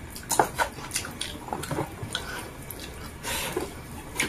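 Close-up wet chewing and lip-smacking of people eating fried fish with their hands: a run of short, irregular smacks and clicks, with a slightly longer noise about three seconds in.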